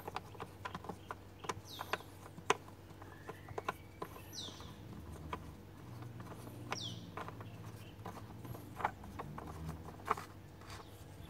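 Irregular light clicks and taps as a hand screws the plastic wing nut down on a Perodua Kancil's round air filter housing lid until it is tight.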